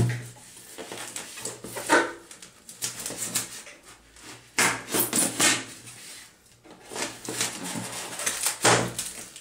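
Packing tape and cardboard being cut and torn open on a parcel by hand: irregular rips and scrapes in several bursts, over a steady low hum.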